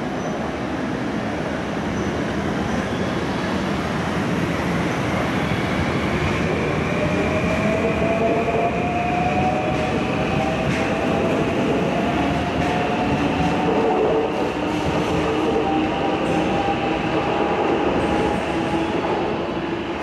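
Electric local train running through the station, its motors whining in a tone that slowly rises in pitch as it gathers speed, over steady wheel and running noise.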